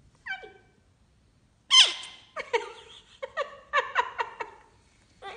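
Goffin's cockatoo calling: a short falling note, then a loud falling squawk, followed by a quick run of short squeaky chatter notes at about four a second.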